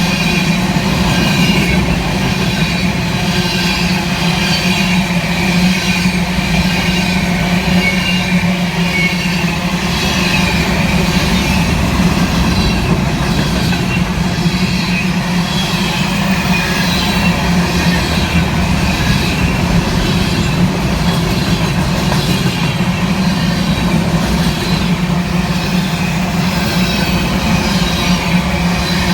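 Empty freight train of grain cars rolling steadily past: a continuous rumble of wheels on the rail, with repeated high metallic wheel noise over it.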